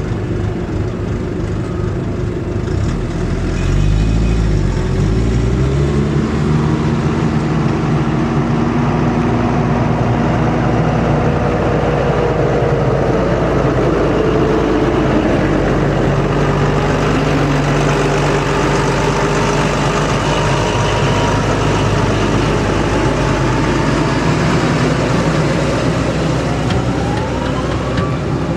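Diesel vehicle engines: a truck pulls away with its engine note rising about three seconds in. A farm tractor's diesel engine then runs steadily as it approaches and crosses, revving up near the end.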